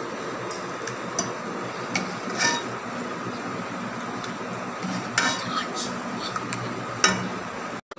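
Steel ladle scraping and clinking against a cooking pot and glass serving bowls as thick basundi is ladled out. There are a few sharp knocks, the loudest about five seconds in and again near the end, over a steady background hiss.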